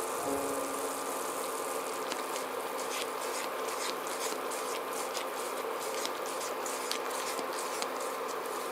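White jelly powder mixture at a rolling boil in a nonstick pan, a steady bubbling hiss with a low hum under it and many small pops and clicks from about two seconds in as a silicone spatula stirs it.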